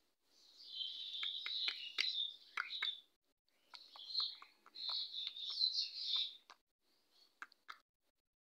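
Small birds chirping in quick, busy twittering, in two stretches of a few seconds each, with sharp clicks and taps mixed in.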